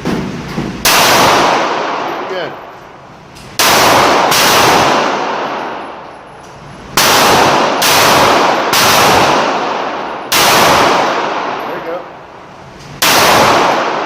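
Glock 9mm pistol shots at a slow, steady pace, a loud shot about every three seconds. Each shot trails off in a long echo.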